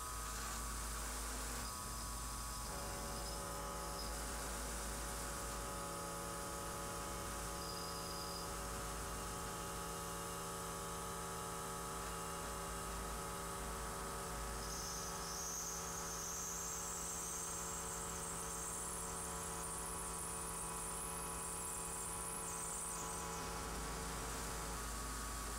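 Milling machine running, with a steady motor whine and hum, as its end mill cuts the clamped steel workpiece under a hissing air-blast coolant. A high thin whine joins for several seconds in the second half.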